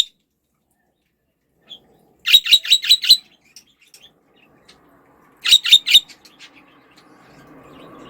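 Pet budgerigar calling: a quick run of sharp, high chirps about two seconds in, and a shorter run of about four chirps some three seconds later.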